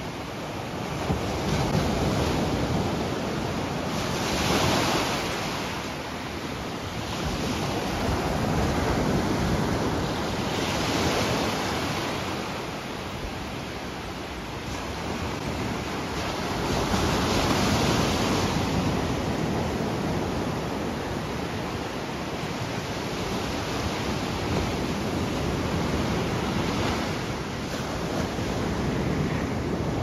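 Atlantic Ocean surf on a calm evening: small waves breaking and washing up the sand, swelling louder every several seconds as each wave breaks.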